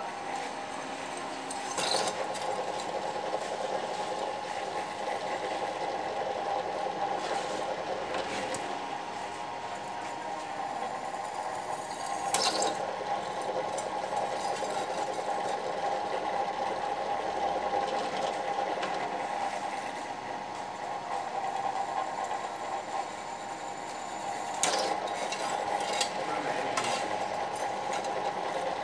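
Bench drill press running with a steady motor hum while its bit is fed into a metal plate clamped in a vise, with a few sharp metallic sounds of the bit cutting.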